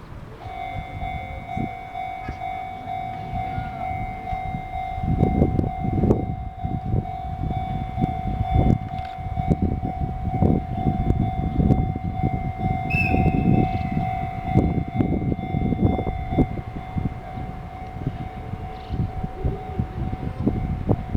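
Level-crossing warning alarm sounding one steady ringing tone. Under it, an approaching freight train's rumble and wheel clatter grow louder from about five seconds in.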